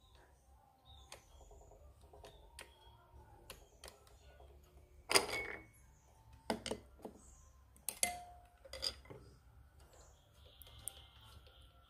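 Light metallic clicks and clinks from a screwdriver and hand-turned parts working on an industrial single-needle sewing machine's needle clamp and rotary hook. The sharpest clinks come about five, six and a half, eight and nine seconds in.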